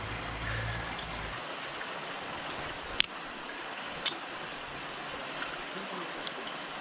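Shallow river water running and trickling over rocks around a netted steelhead, with a low rumble that stops about a second and a half in. Two sharp clicks about three and four seconds in, then a fainter one near the end, as metal hemostat forceps are worked at the fish's mouth to take out the hook.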